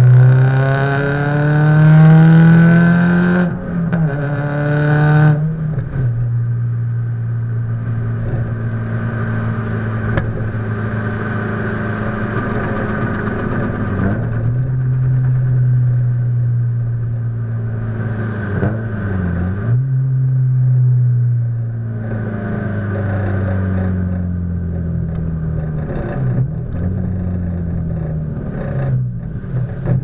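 Subaru Impreza WRX STI's turbocharged flat-four engine heard through an aftermarket A.R.T. titanium exhaust while driving. The note climbs twice in the first five seconds, each climb ending in a sudden drop at a gear change, then the car cruises with smaller rises and falls in pitch. The sound is slightly muffled by the camera's waterproof housing.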